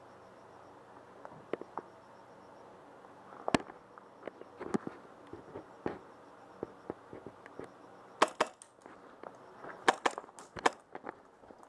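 Airsoft gun shots: sharp, scattered single pops, with quicker clusters of louder cracks about eight seconds in and again near ten seconds in.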